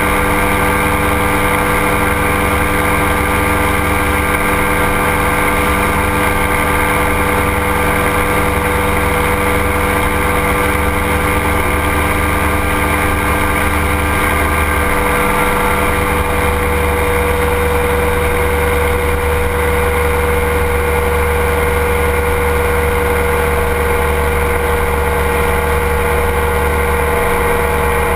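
Ultralight aircraft's engine and propeller running steadily in level flight. The pitch shifts slightly about halfway through.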